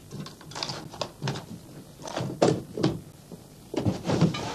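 A series of irregular thuds and rustles, like handling and shuffling about.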